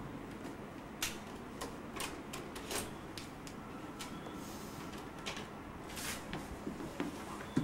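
Electronic typewriter clicking: irregular keystrokes and print strikes, a few sharp clicks at a time with uneven gaps.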